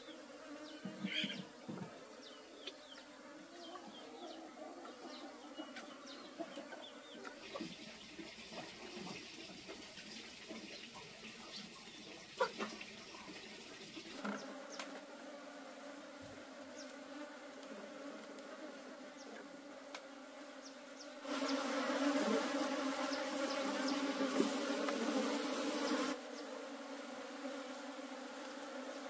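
Honeybees buzzing steadily in a swarm, with a dense drone of many wingbeats; it jumps louder for about five seconds near the end.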